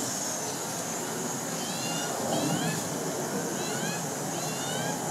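Steady suburban outdoor background noise with small birds calling: short rising chirps in quick runs of two to four, about two seconds in and again about four seconds in.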